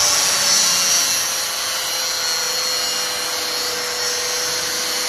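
Power tool running steadily, cutting through a door lock, with a held motor whine and a hiss over it.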